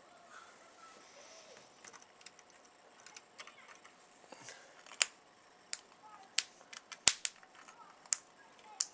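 Irregular sharp metallic clicks and snaps from pliers and a 120-volt wire lead working against a VCR circuit board, louder and more frequent in the second half. The loudest snaps are the live lead arcing against the board.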